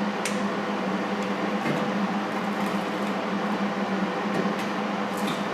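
Steady mechanical hum of a fan-driven machine, with a constant low drone and a couple of faint clicks near the start and near the end.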